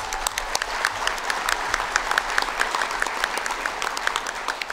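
Audience applauding steadily, a dense patter of many people clapping.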